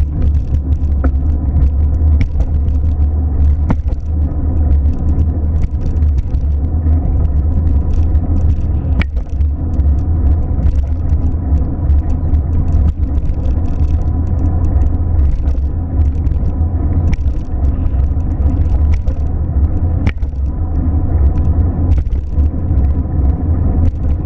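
Steady low rumble of a car, with a few faint ticks; no horn sounds.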